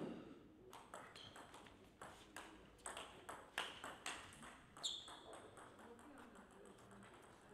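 Table tennis rally: a quick series of sharp clicks as the celluloid-type ball is struck by the rubber bats and bounces on the table, about two a second, stopping about five seconds in when the point ends.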